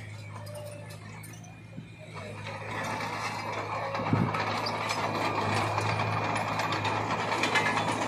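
Loaded dump truck driving slowly on a dirt road, engine running and body rattling and clattering, growing louder from about two and a half seconds in as the truck comes closer.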